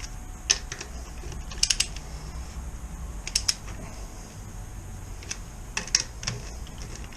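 Metallic clicks of a torque wrench with an extension on the rear wheel bolts of a BMW R1250RT, coming in small clusters a second or two apart as the bolts are tightened.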